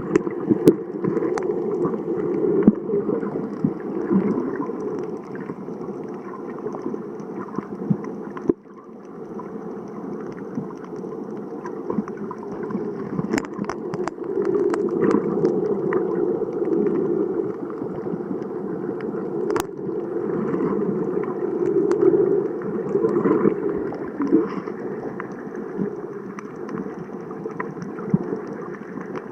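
Muffled water noise: a steady gurgling rush with scattered sharp clicks, dipping briefly about eight seconds in.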